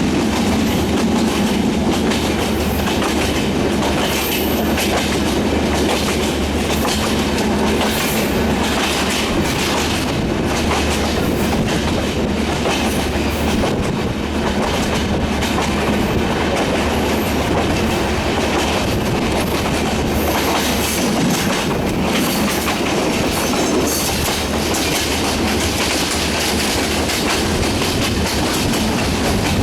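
Passenger train running steadily, its wheels clattering over the rail joints in a continuous loud rumble with rapid clicks.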